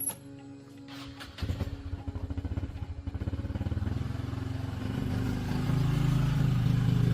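Excavator diesel engine starting: about a second and a half in it catches with a fast run of firing pulses, then runs steadily and grows louder.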